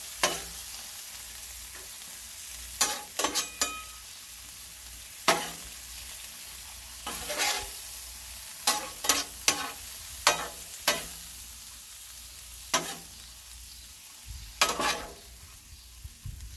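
Shrimp, scallops, onions and mushrooms sizzling in oil on a 22-inch Blackstone steel griddle, with a metal spatula scraping and clacking against the griddle top at uneven intervals as the food is stirred and chopped.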